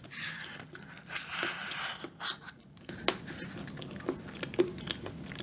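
Close-miked eating of thick cup pudding: soft, wet chewing and mouth sounds, then a few small sharp clicks in the second half as a wooden spoon scoops from the paper cup.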